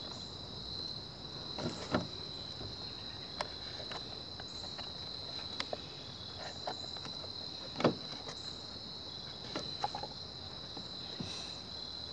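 A steady, high-pitched insect trill, with scattered clicks and taps from hands feeding a fuel line back into a Homelite leaf blower's fuel tank. The sharpest clicks come about two seconds in and near eight seconds.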